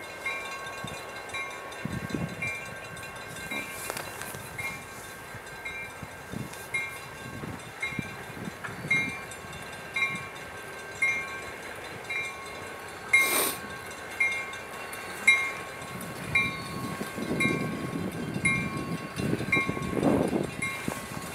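Freight train rolling over a rail diamond crossing, its wheels thumping irregularly as they hit the crossing frogs. A level-crossing warning bell rings steadily about twice a second throughout.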